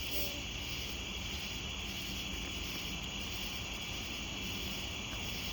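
A steady high-pitched insect chorus, crickets trilling without a break, over a faint low rumble of outdoor background.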